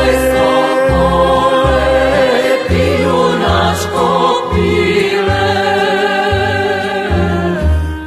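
Macedonian folk song recording: singing with wavering vibrato over band accompaniment, with a regular low bass beat underneath.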